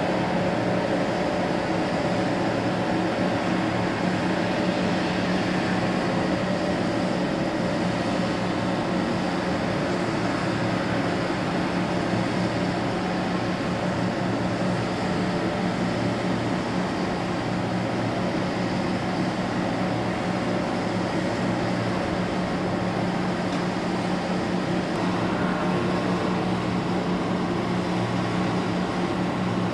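Diesel towboat's engines running steadily in the lock, a constant drone that does not change in pitch.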